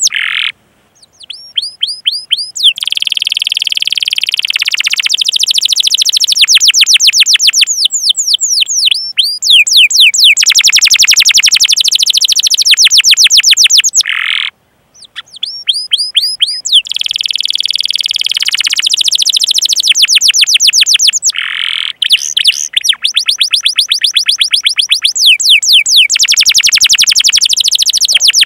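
Domestic canary singing a long, loud rolling song: rapid trills of quick, evenly repeated chirps, many of them fast downward sweeps, run together in long phrases with a few brief pauses.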